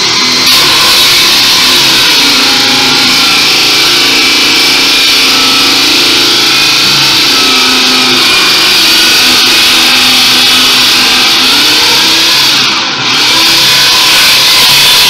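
Corded drill driving a hole saw through a wood panel. The motor runs with a steady whine that sags and rises in pitch as the saw teeth bite and cut, with a short dip near the end before it picks up again.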